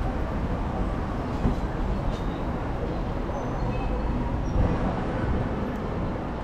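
Steady city traffic noise from the road beside a busy sidewalk, a continuous low rumble of passing vehicles.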